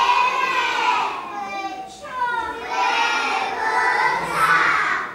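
A group of young children singing a folk song together in high voices, in two long phrases with a short break about two seconds in.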